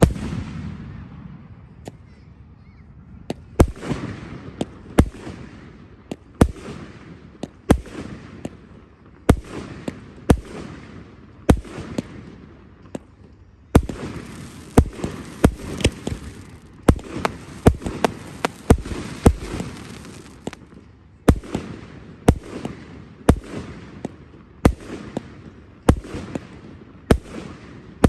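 Fireworks display: a long, irregular run of sharp bangs from exploding aerial shells, often one or two a second, with a noisy haze of crackle and echo between them.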